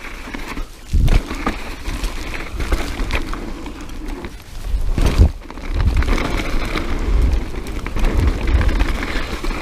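Mountain bike riding fast down a dirt trail, recorded on an action camera: knobby tyres rolling and crunching over the ground, small rattles from the bike, and wind rumbling on the microphone, with heavier thumps about a second in and about five seconds in.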